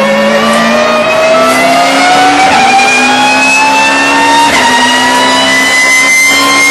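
Race car engine heard from inside the cockpit, accelerating hard with a steadily rising note. The note breaks and steps twice, about two and a half and four and a half seconds in, as it shifts up through the gears.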